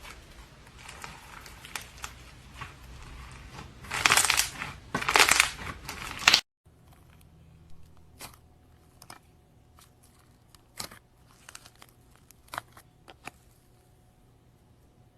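Slime being squeezed and pressed by hand, crackling and squishing, loudest in a few squeezes about four to six seconds in. After an abrupt cut come fainter, scattered pops and clicks.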